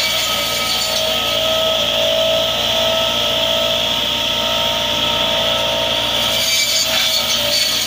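Massey Ferguson 385 tractor's diesel engine running steadily while its front-mounted hydraulic tree trimmer spins a row of circular saw blades through tree branches, giving a continuous mechanical hum and whine.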